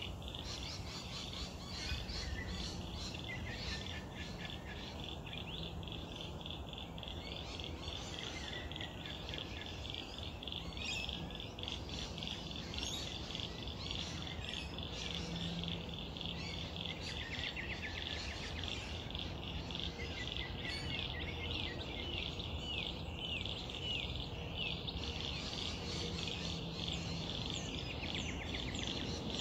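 Bush birds calling and chirping, with a quick run of repeated short falling chirps near the end, over a steady high-pitched trilling chorus and a faint low hum.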